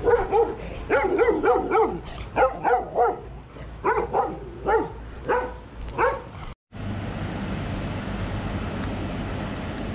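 Small black dog barking repeatedly, about fifteen sharp barks in quick runs, barking wildly. After a cut a little past halfway, a steady rushing noise.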